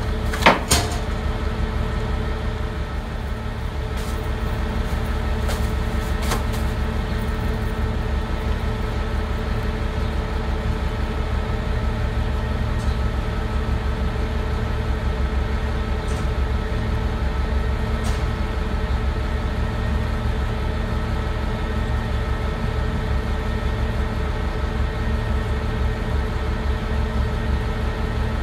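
Garbage truck's diesel engine running steadily at an even speed, with a sharp clank about half a second in and a few light ticks later.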